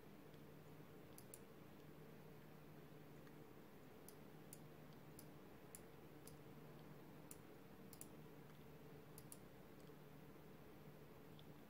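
Near silence: a faint steady low hum with a dozen or so faint, sharp high ticks at irregular intervals.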